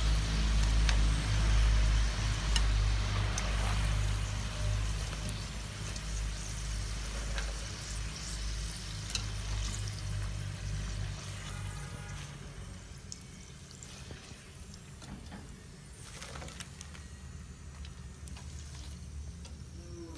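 Hot oil sizzling and crackling as French fries are lifted out of the pan with a wire skimmer, with scattered light clicks. A low steady rumble runs under it and drops away about halfway through, and the sizzling grows fainter over the second half.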